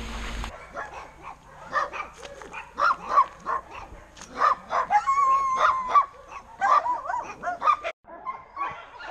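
Several dogs in kennel pens barking and yipping over one another, with one drawn-out, steady cry about five seconds in.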